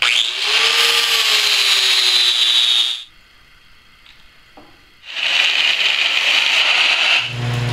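Angle grinder grinding down a weld on a steel hydraulic cylinder, in two runs of about three and two seconds with a quiet gap between, a high whine riding over the grinding noise. A steady low hum starts near the end.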